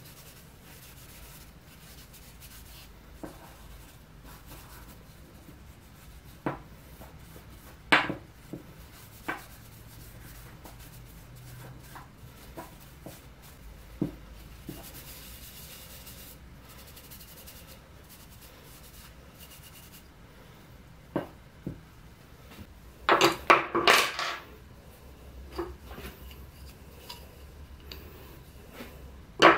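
A rag rubbing finish into small wooden parts, with the parts knocking and clattering on the workbench now and then. The loudest is a quick cluster of knocks about three quarters of the way through.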